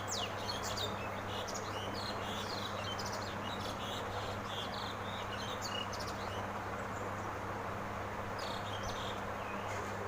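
Small birds chirping in quick, short calls, busiest at the start and again near the end, over a steady low hum and hiss.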